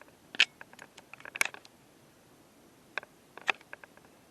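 Handling noise from the recording phone: scattered sharp clicks and taps in small clusters, with quiet between them.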